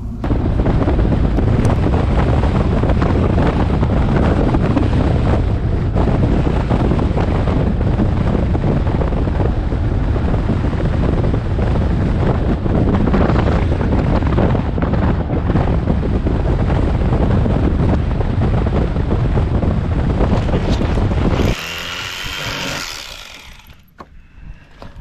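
A boat's outboard motor running at speed, with heavy wind noise on the microphone. About 21 seconds in, it cuts off suddenly to a brief quieter hiss that fades away.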